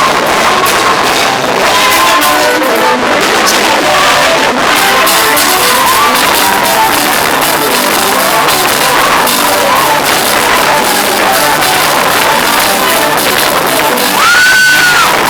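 Church praise music: a band playing while a crowd sings along. One high held note rises above it near the end.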